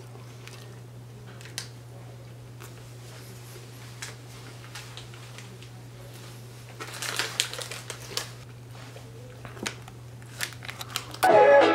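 Plastic snack-cookie wrapper crinkling in a few short bursts, with small clicks, over a steady low hum. Music starts near the end.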